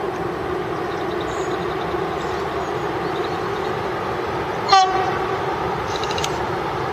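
Freight train of tank wagons running past with a steady rumble, and a single short, sharp blast of the locomotive's horn about two-thirds of the way through.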